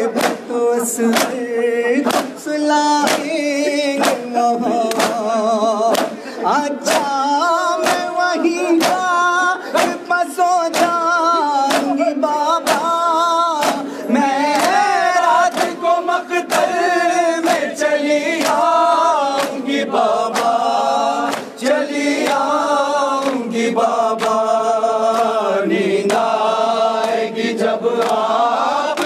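Men's voices chanting a noha lament together, with the sharp slaps of hands beating on bare chests (matam) keeping time at about two strokes a second.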